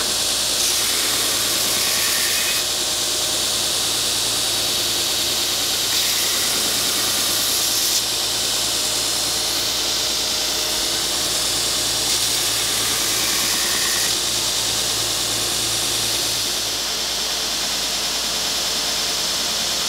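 Belt sander running steadily with a loud hiss and a low hum underneath, as a hickory axe handle is sanded against it.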